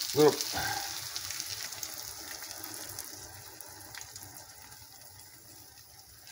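Beaten egg and milk poured from a bowl into a hot frying pan of sautéed vegetables, the liquid splashing in and sizzling; the sizzle fades steadily over the next few seconds.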